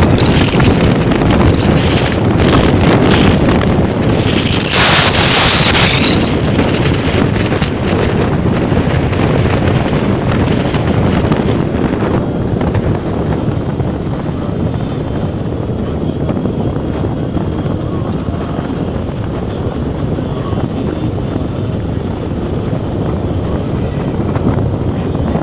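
Wind buffeting the microphone of a phone held out of a moving vehicle's window, over the rumble of the vehicle driving on a desert sand track. A brief louder hiss comes about five seconds in.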